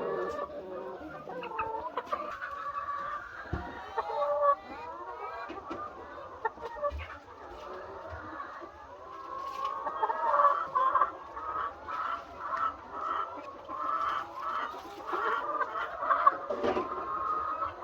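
A large flock of laying hens clucking and calling over one another.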